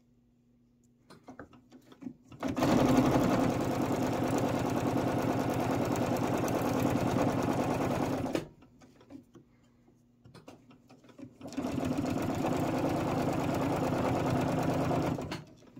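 Sewing machine stitching a quilt border seam at a steady fast speed in two runs, about six and four seconds long, with a pause between them. There are a few faint clicks before each run.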